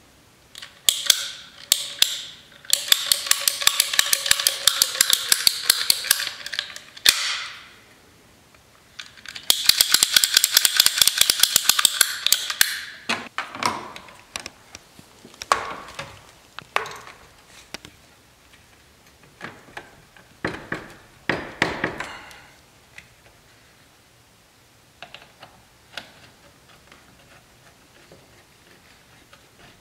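Rapid ratcheting clicks in two runs of a few seconds each, from a ratcheting hose cutter being worked through a thick rubber coolant hose. Scattered clicks and knocks follow.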